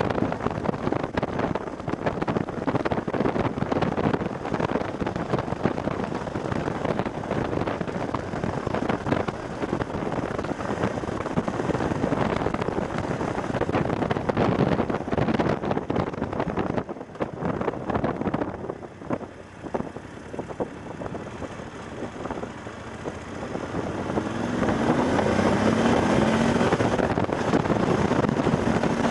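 Wind buffeting an action camera's microphone on a moving BMW F750GS motorcycle, with the bike's parallel-twin engine running underneath. The wind eases for a few seconds past the middle, then a wavering engine note comes through more clearly near the end.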